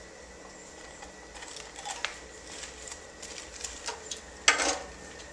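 Light scattered clicks and taps of hands handling a stopped Predator 212cc engine, with one louder knock about four and a half seconds in.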